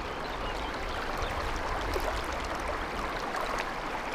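Small creek's water rushing steadily over rocks in a shallow riffle.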